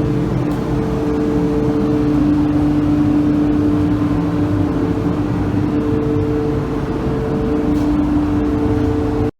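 A steady machine hum with a constant droning tone and a second, higher tone that fades in and out, cutting off suddenly near the end.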